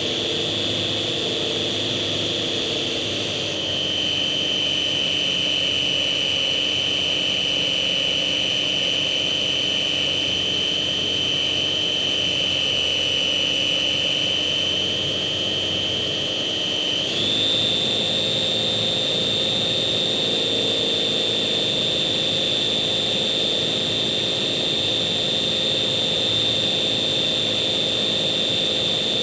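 Electric motor and propeller of a Slow Stick RC model plane running steadily in flight, with a high whine. The pitch steps down slightly a few seconds in and steps back up about halfway through as the throttle changes.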